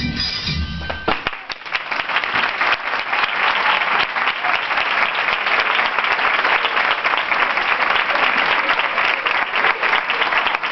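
A piece of music with low beats stops sharply about a second in, and an audience breaks into steady applause that carries on to the end.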